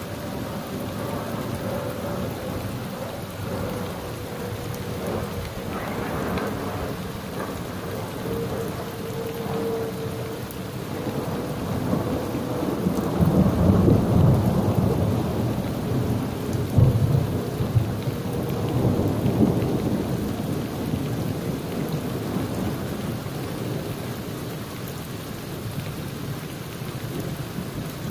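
Thunderstorm: rain falling steadily throughout while a long roll of thunder swells about twelve seconds in, peaks with a sharper clap a few seconds later, and rumbles away.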